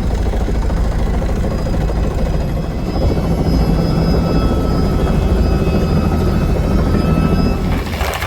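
Helicopter running steadily in flight, a loud low drone of engine and rotor. Near the end it switches abruptly to a thinner, hissier sound.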